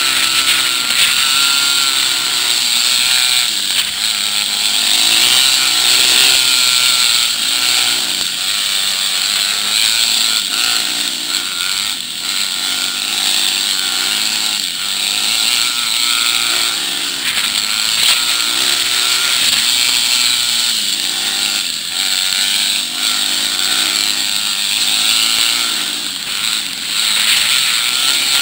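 Dirt bike engines running along a trail, the engine pitch rising and falling again and again as the throttle is worked, with a steady high hiss over it.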